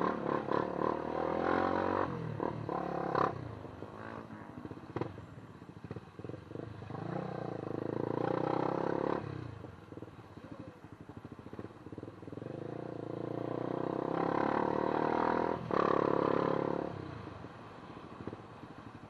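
Motorcycle engine running under load, revving up and easing off three times.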